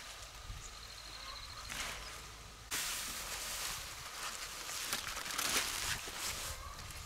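Rustling of leafy kohlrabi being handled and laid into a woven bamboo basket, with scattered light knocks and rustles. The rustling steps up suddenly and gets louder a little under three seconds in.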